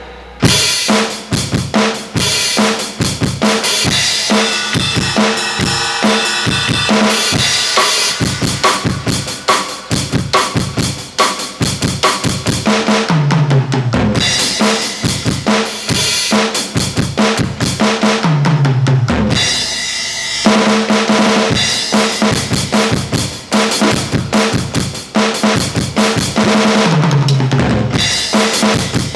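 Aroma TDX15S electronic drum kit on its 'Rock Live' preset playing a steady rock beat of bass drum, snare and cymbals, heard through an amplifier. Runs down the toms, falling in pitch, come about 13, 18 and 27 seconds in, with a short pause just before the 20-second mark.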